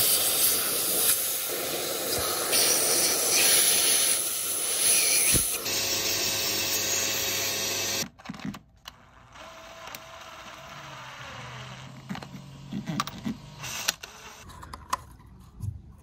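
Vacuum cleaner with a narrow tube attachment running with a steady whine, sucking water out from around the ignition coil ends and spark plug ports of a Hyundai i20 engine, then cut off about eight seconds in. Quieter handling follows, with a few clicks near the end as the coils are refitted.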